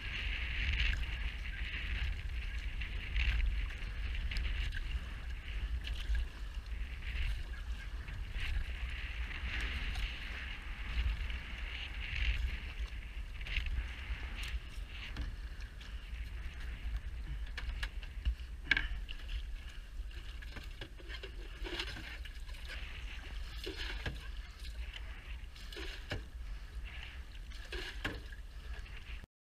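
Wind buffeting the microphone and water splashing and rushing along the hull of a one-person outrigger canoe paddled through choppy water, with irregular splashes and one louder slap about two-thirds of the way in. The sound stops abruptly just before the end.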